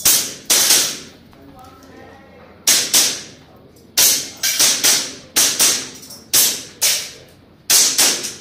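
Airsoft pistol firing a string of about fifteen sharp shots, mostly in quick pairs with a pause of about a second and a half near the start, as a shooter works through an IPSC-style stage.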